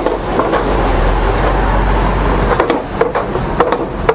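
Steady low rumble of road traffic and a heavy truck's engine, with a run of sharp clicks and knocks in the second half.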